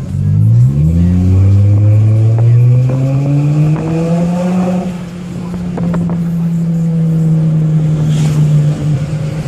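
Volkswagen Jetta's engine heard from inside the cabin as the car accelerates: its pitch climbs quickly in the first second, then more slowly for about four seconds, dips briefly in loudness around the middle, and then holds steady.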